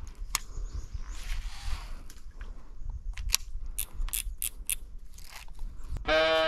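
Scattered small clicks and snips of fishing tackle being handled while the angler switches to a jig, over a low rumble. Music comes in near the end.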